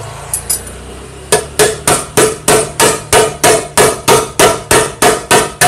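Hammer tapping on metal in a steady run of about fifteen sharp blows, roughly three a second, starting about a second and a half in: seating the kick-starter lever onto its splined shaft on a Yamaha Mio scooter's CVT cover.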